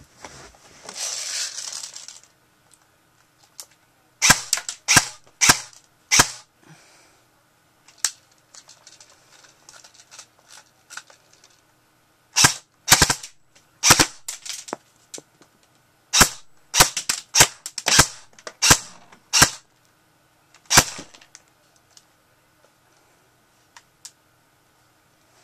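Airsoft gun firing a series of sharp shots: four spaced about half a second apart, a lone shot, a pause, then two quick runs of about a dozen more, ending with a single shot. A brief hissing rustle comes before the first shot.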